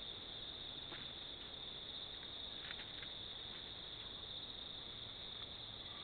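Insects, likely crickets, trilling steadily and high-pitched over faint hiss, with a few faint ticks.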